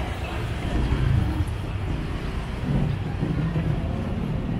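Road traffic: vehicle engines running with a steady low rumble.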